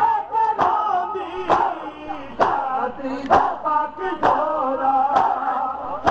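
Men's voices chanting a noha lament together, with a sharp slap of hands beating chests in unison (matam) about once a second.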